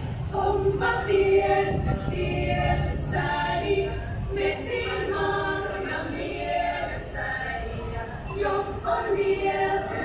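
Women's choir singing, several voices together holding long notes that change in pitch every second or so.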